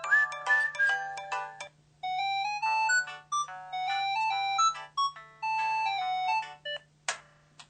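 Samsung SPH-V5100 mobile phone playing its built-in polyphonic ringtone melodies. One tune ends about two seconds in, and after a short pause another synthesized melody of single bright notes plays.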